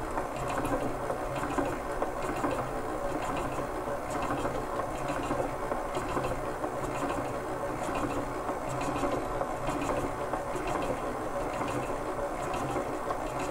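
Stand mixer running steadily at low speed (speed 3), its silicone-edged beater mixing an egg into creamed butter and sugar batter.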